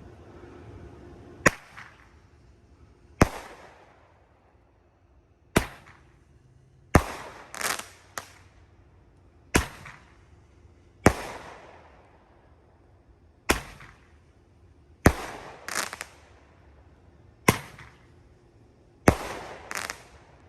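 A Black Thunder five-ball Roman candle firing its five shots: ten sharp bangs in pairs about a second and a half apart, the pairs about four seconds apart, and a brief crackle after some of them. Each pair is a ball being launched and then bursting with a pop.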